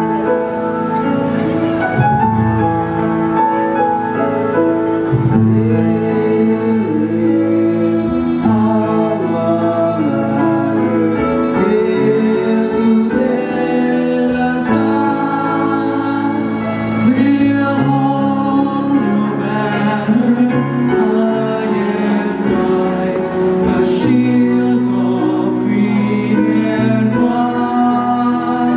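A choir singing with instrumental accompaniment.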